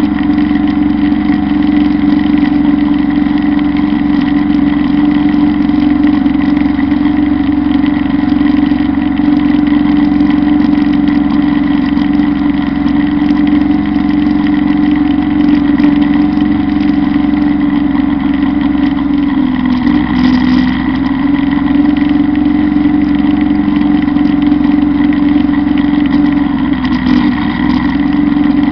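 Kubota Bulltra B1-17 compact tractor's diesel engine running steadily at working speed while driving a Zanon PTO drum mower through tall grass. The engine note sags briefly about two-thirds of the way through and slightly again near the end.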